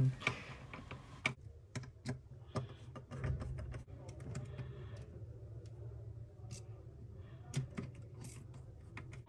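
Scattered small clicks and taps of a screwdriver turning screws through a metal pillow-block bearing mount into a wooden block, irregular and light.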